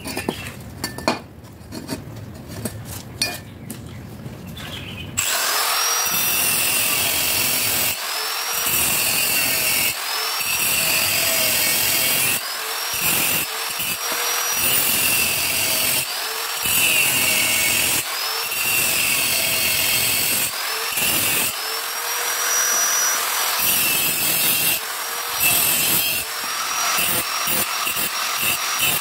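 Electric angle grinder with a thin cutting disc cutting into a steel pipe, starting about five seconds in after a few faint taps: a loud high whine with a harsh grinding noise. It comes in short stretches of a second or two, each opening with a rising whine.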